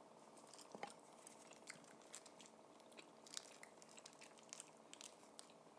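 Near silence with faint chewing and scattered small mouth clicks as a snack bun is eaten.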